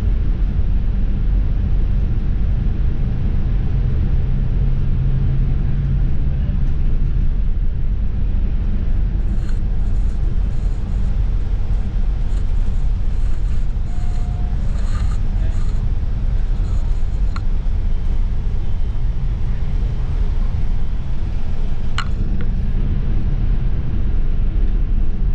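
Steady low rumble of a city bus's engine and road noise heard from inside the cabin, with a steadier engine drone that holds for a few seconds near the start and a sharp click near the end.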